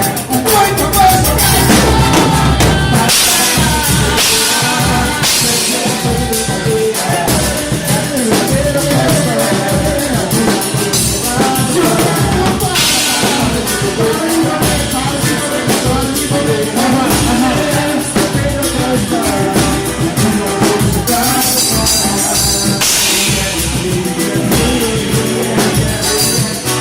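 Band music with a drum kit and singing: a steady, upbeat groove played without a break.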